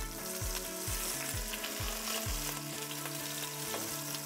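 Potato-scaled mahi mahi fillets sizzling steadily in hot olive oil in a nonstick frying pan as they sear potato side down. Background music with a steady beat plays underneath.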